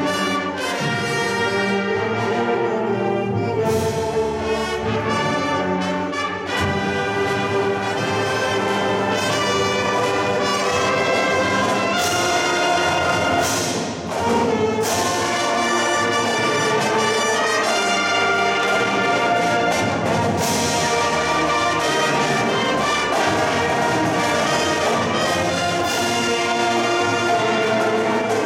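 Marching band playing a field show: brass section with trumpets and trombones carrying sustained chords, punctuated by percussion hits.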